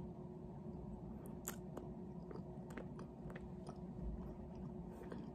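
A person chewing food close to the microphone, quietly, with faint scattered mouth clicks.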